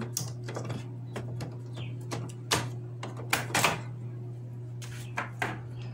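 Plastic clicks and knocks of ink cartridges being unclipped and pulled out of the carriage of an HP Deskjet Plus Ink Advantage 6475 printer, the loudest clicks about halfway through, over a steady low hum.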